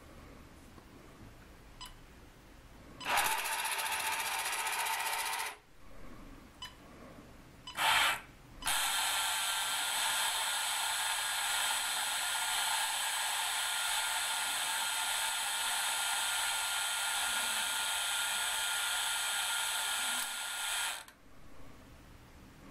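Small electric motors and gearing of a 1962 toy excavator running in bursts as it moves its boom and grab bucket: a run of about two and a half seconds, a brief burst, then a long steady whine of about twelve seconds that stops suddenly near the end. Faint clicks come before the runs.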